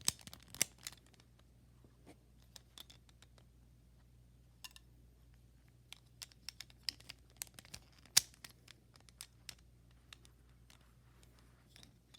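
Plastic Rubik's Cube pieces being handled and pushed back into place on a partly reassembled cube: scattered sharp clicks and taps, two of them louder, one just after the start and one about two-thirds of the way through.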